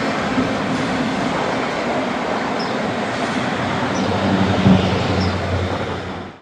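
Double-stack intermodal freight train rolling past on the rails, a steady rumble and rattle of the cars. A low hum joins about four seconds in, with a brief thump just before five seconds. The sound fades out at the very end.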